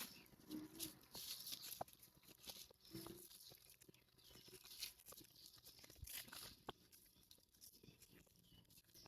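Near silence with faint scattered clicks and light rustling.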